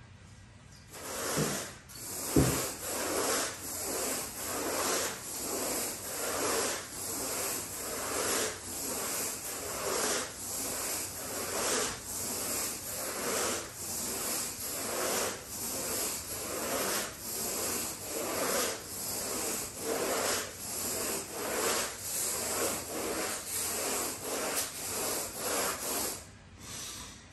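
A carpet groomer's bristles are pulled in repeated strokes through the carpet pile, about two a second, grooming freshly cleaned carpet. There is a single sharp knock about two seconds in.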